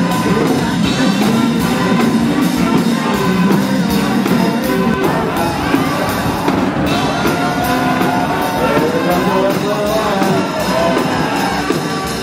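Band music with a steady drumbeat, with a crowd cheering and voices singing or chanting along.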